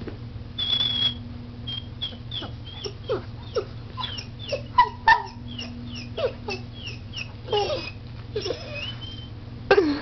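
Dog whining: a rapid run of short, high whimpers that bend up and down in pitch, with a couple of longer whines near the end.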